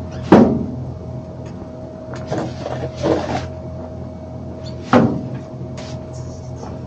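Long-handled plastic leaf grabbers knocking against a wheelbarrow twice, sharply and with a short ring, about a third of a second in and again about five seconds in, as leaves are tipped in. Between the knocks the scoops scrape and rustle through dry leaves on the paving.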